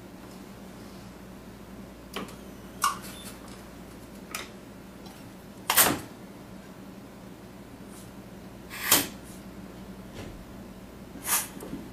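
Capacitor-discharge resistance welder with parallel electrodes welding motor wires onto commutator bars: a sharp snap with each weld, about every three seconds, with fainter clicks between. A steady low hum runs underneath.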